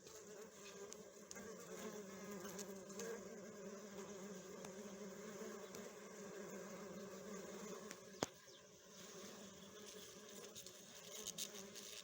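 A hive of honeybees humming steadily, a dense low buzz of many bees. A single sharp click about eight seconds in.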